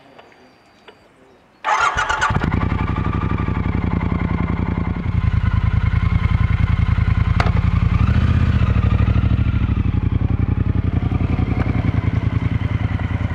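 Triumph Bonneville T120's 1200 cc parallel-twin engine started with a sudden burst about two seconds in, catching at once and running with an even beat. It gets louder about five seconds in and rises briefly in pitch as the motorcycle pulls away.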